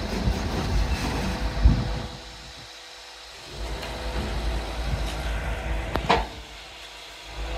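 Volvo EW160E wheeled excavator's diesel engine running with a low rumble and a steady hum. It goes quieter twice for about a second, with a sharp knock in the first two seconds and a brief sharp sound near the end.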